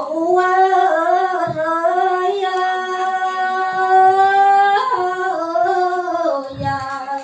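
A woman singing lượn, the Tày folk song style, in a single voice: she holds one long, slightly wavering note for about four seconds, then moves on through a few shorter notes near the end.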